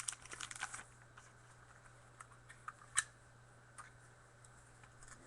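Trading cards and plastic sleeves being handled, with faint rustling and crinkling in the first second, then a single sharp click about three seconds in and a few light ticks.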